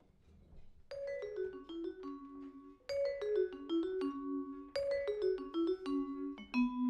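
Vibraphone played with mallets: three quick falling runs of notes, the first starting about a second in, each settling onto held, ringing notes. These phrases open a jazz blues.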